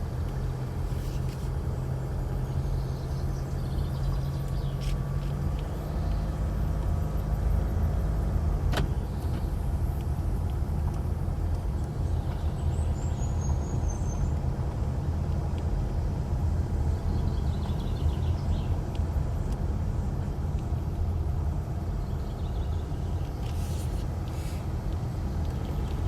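Steady low rumble of a running motor vehicle, with a short run of high chirps about 13 seconds in.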